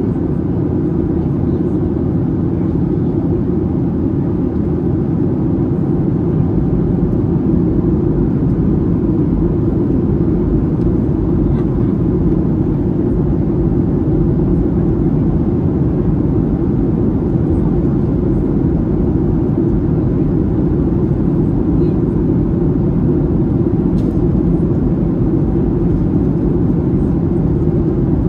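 Steady cabin noise of a Boeing 737-700 in flight, heard from a window seat over the wing: the engines and rushing air make a deep, even rumble. The wing's speed brakes are raised for the descent.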